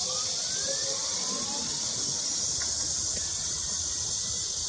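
Insects buzzing steadily at a high pitch, the loudest sound throughout. Under it, a faint whine rises in pitch over the first second and a half as the small electric mini-truck pulls away.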